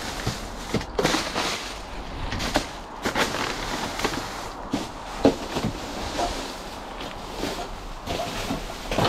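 Trash being rummaged in a snow-filled dumpster with a metal hook pole: irregular rustling, crunching and knocking as snow-covered plastic bags and boxes are dragged and pushed about.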